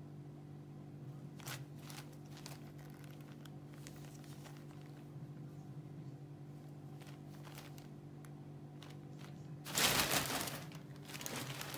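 Plastic shopping bag rustling and crinkling as a tabby kitten moves around inside it: light scattered rustles at first, then a loud burst of crinkling about ten seconds in as the bag is thrashed about, and more just before the end.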